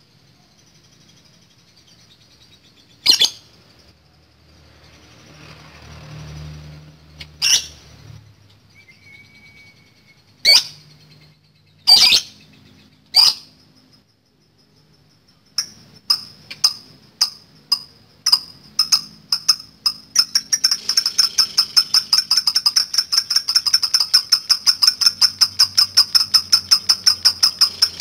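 Lovebird calling in its long 'ngekek' chatter: a few separate shrill chirps, then chirps that come faster and faster until, in the second half, they run together into a fast, even rattling string that keeps going.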